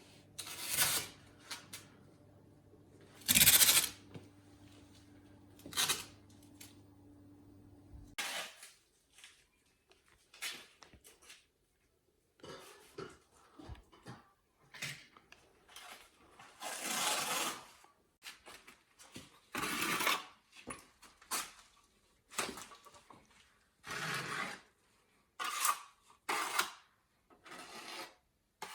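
Masking tape being pulled off the roll and plastic film being rustled and pressed on while the walls and floor around a fireplace are covered, in irregular ripping bursts with pauses between them. A faint low hum runs under the first third and cuts off suddenly.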